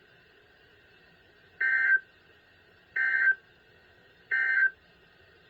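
Emergency Alert System end-of-message signal: three short, buzzy bursts of digital data tones, just over a second apart, marking the end of the severe thunderstorm warning.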